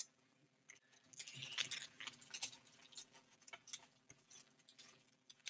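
Pokémon trading cards and a booster pack being handled on a table: faint, scattered clicks and crinkling rustles, with one sharper click right at the start.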